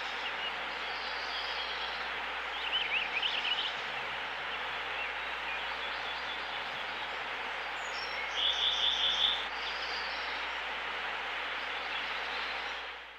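Steady rush of a flowing brook with small birds calling over it: a quick run of warbling chirps about three seconds in, and a fast trill of about six notes around eight to nine seconds in. The water sound fades out at the end.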